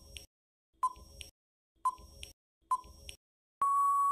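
Quiz countdown timer sound effect: four short ticks, about one a second, then a steady electronic beep near the end as time runs out.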